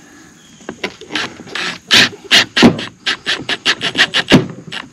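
A quick, irregular run of sharp clacks, about five a second, starting about a second in, as a cordless drill drives a screw down through the shingle-covered wooden roof of a chicken coop.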